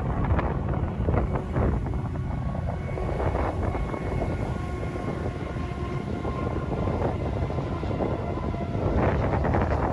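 CN freight train crossing a bridge: diesel locomotives running, then a steady rumble as the double-stacked container cars roll past. Gusts of wind hit the microphone near the start and again near the end.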